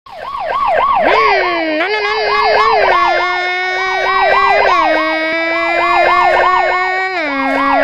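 Police-style siren yelping, its pitch swooping up and down about two or three times a second, over a steady buzzing tone that drops in pitch in a few steps.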